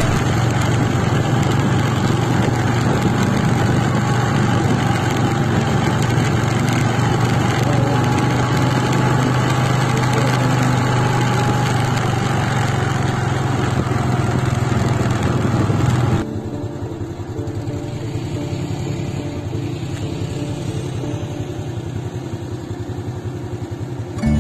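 Motorcycle engine running at a steady cruise with road and wind noise, cutting off suddenly about two-thirds of the way in; quieter background music is left after it.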